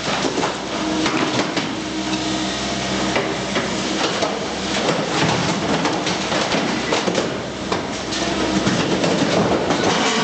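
Brokk B90 demolition robot tearing down ceiling boards with its hydraulic sorting grapple: continuous crunching, cracking and clattering of breaking board and falling debris, over a steady hydraulic hum that rises and falls as the arm works.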